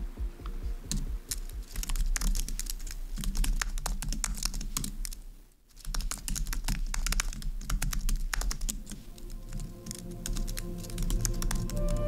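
Typing on a low-profile computer keyboard: a fast, uneven clatter of keystrokes that pauses briefly about five and a half seconds in, then resumes.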